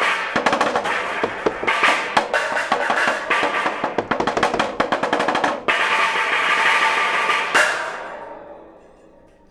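Improvised percussion on bent thin sheets and a tall panel, struck with sticks and mallets in fast, dense rolls and flurries that set the sheets ringing. Near the end one last hit rings on and fades away.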